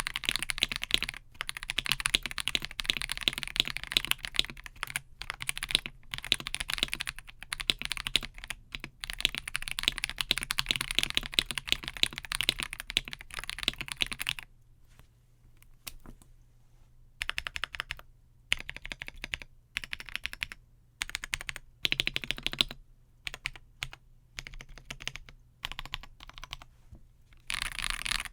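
Typing on a KBD67 Lite R2 mechanical keyboard with lubed Akko CS Ocean Blue switches and NP Crayon keycaps: fast, continuous keystrokes for about the first fourteen seconds, then slower, separate keystrokes and short runs with pauses between, and brisk typing again near the end.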